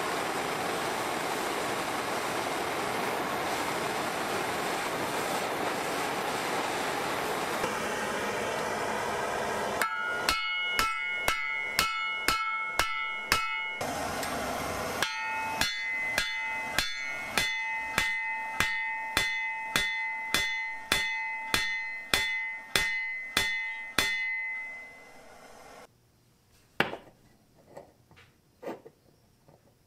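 A handheld gas torch hissing steadily as it heats a drill bit, then a hammer forging the red-hot bit flat on a steel block: about two ringing blows a second for some fourteen seconds, with a short burst of torch hiss between them. It ends suddenly, followed by a few light taps as the flattened bit is handled on a bench.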